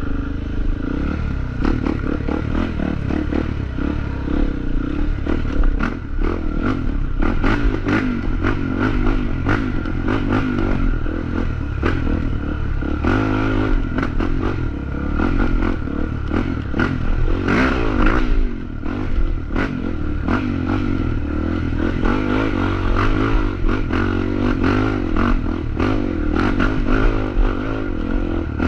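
Off-road trail motorcycle engine running under load, its pitch rising and falling with the throttle as it is ridden over rough ground, with frequent knocks, clatter and scrapes from the bike jolting over the trail.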